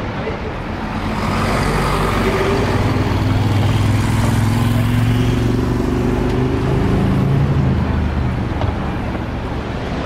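A heavy road vehicle's engine passing close by: a low drone that builds about a second in and fades after about eight seconds, over a steady rush of background noise.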